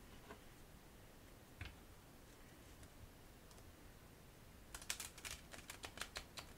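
A deck of Z-Deck playing cards being riffle-shuffled by hand on a tabletop. It is mostly quiet with one faint click, then near the end about a second and a half of rapid flicking clicks as the card edges are released and the two halves interleave.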